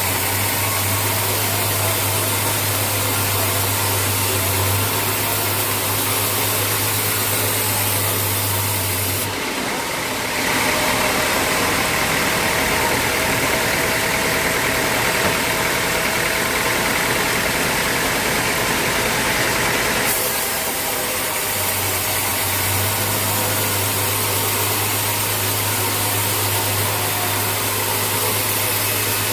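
Sawmill machinery running steadily. A low hum drops out about nine seconds in, giving way to a brighter, higher running sound that ends about twenty seconds in, when the low hum returns.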